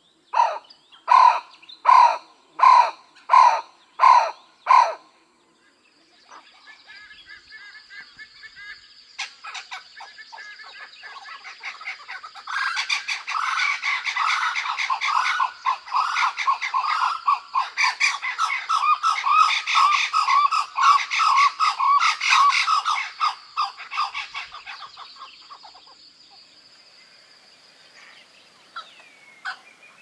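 Blue-winged kookaburras calling: about seven loud, harsh barks in a row in the first five seconds, then a rapid cackling chorus that builds from about six seconds in, is loudest through the middle, and fades away near the end.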